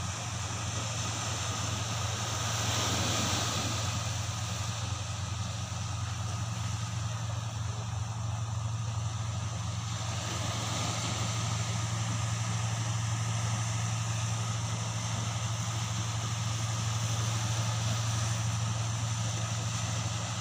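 An engine running steadily, a low even drone with no change in speed.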